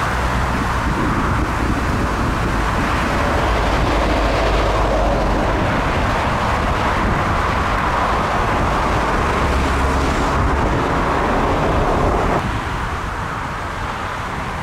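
Four-engined Airbus A380 slowing on the runway just after touchdown: a loud, steady rush of jet engine noise with a deep rumble underneath. About twelve seconds in it drops suddenly to a quieter, thinner rumble.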